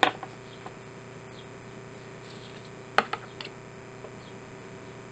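Light clicks and taps of a plastic glue bottle and craft materials handled on a tabletop as glue is applied: a sharp click at the start and another about three seconds in, followed by a few lighter ticks, over a faint steady hum.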